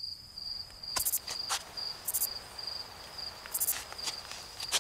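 Night-time insect chorus: a cricket chirping in a steady, evenly pulsed trill, with several short, very high buzzing calls from other insects and one sharp click about a second in.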